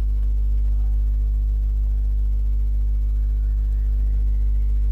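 Steady low electrical hum with evenly spaced overtones, unchanging throughout, like mains hum picked up by the recording setup.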